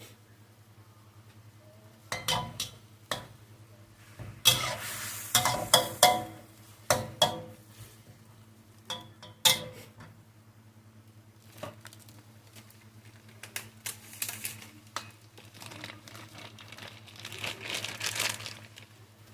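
A metal cooking utensil clattering and scraping against a pan during stir-frying, in bursts of sharp knocks, with a hissing stretch near the end and a steady low hum underneath.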